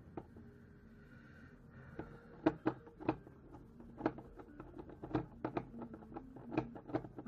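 Hand screwdriver and the plastic housing of a cordless screwdriver being handled, starting about two and a half seconds in: a string of sharp, irregular clicks and taps, several a second.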